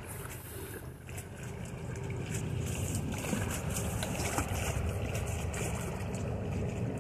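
A low steady rumble that swells over the first two seconds and then holds.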